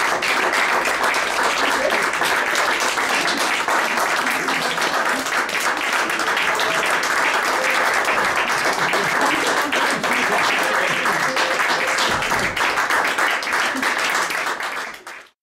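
Audience applauding steadily, dense rapid clapping with a few faint voices, until it cuts off near the end.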